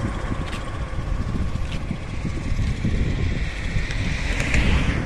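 Highway traffic passing, with wind buffeting the phone microphone; a passing vehicle grows louder near the end.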